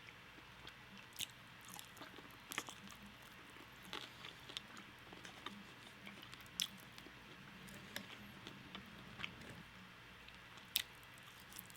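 A person chewing and biting food close to the microphone: irregular sharp wet clicks and small crunches over a faint steady background, the loudest click near the end.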